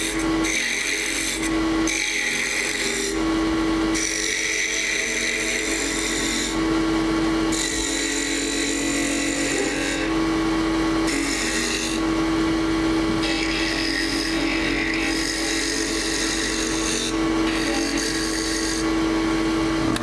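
Wood lathe running with a steady hum while a 3/8-inch detail gouge cuts the spinning wood. The hiss of the cuts starts and stops every second or two as the small mushroom shape and its stem are turned.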